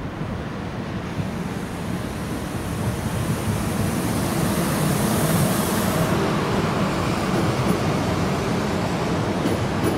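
Regional electric multiple unit approaching and running past on the rails, its wheel and running noise growing steadily louder. A high hiss sits over the rumble for the first several seconds and stops about six seconds in.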